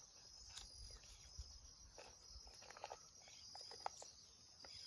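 Faint, steady high insect chorus. From about two seconds in there are soft, scattered rustles and clicks, as a plastic seedling nursery bag is cut along its side.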